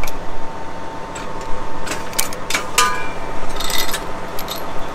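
Sharp metallic clanks and knocks from steel hitch hardware being worked, about two to three seconds in; one clink rings briefly and a short rattle follows. A steady machine hum runs underneath.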